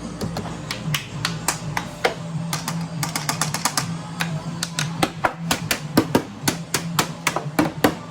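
Music with a steady low note, over many quick, irregular taps and knocks, several a second.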